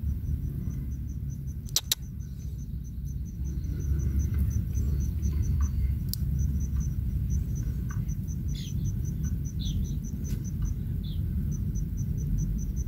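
A cricket chirping in a steady train of short, high-pitched pulses, about five a second, over a low, steady rumble. Sharp clicks come about two seconds and six seconds in.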